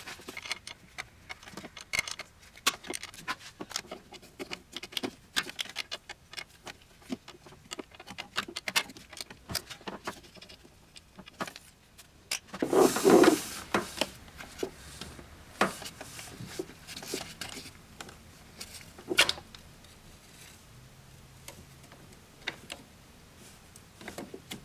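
Hand ratchet clicking irregularly and metal tools clinking as a bolt is undone, with a louder clattering rattle about halfway through.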